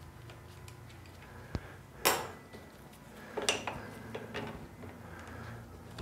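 Metal tools and small suspension bolts clinking and tapping as a T-handle hex driver works the barrel bolts out of the hub's suspension arms. A few scattered clicks, the loudest a short clatter about two seconds in.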